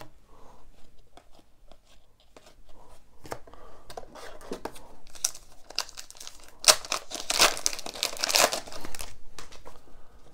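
Plastic wrapper of a hockey card pack being torn open and crinkled, with the loudest crackling from about seven to nine seconds in. Before that, light rustling and clicks as cards are handled.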